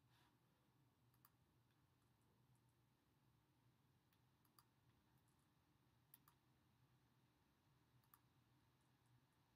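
Near silence with a low steady hum and a few faint clicks a second or two apart, from a computer mouse button.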